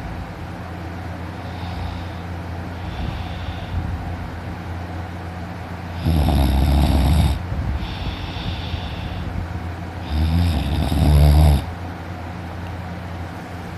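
A man snoring loudly in his sleep. Two loud snores come about four seconds apart, each lasting over a second, with softer breaths between them.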